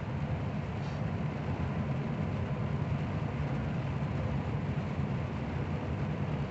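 Steady drone of a truck's engine and tyre noise on a wet road, heard from inside the cab while cruising.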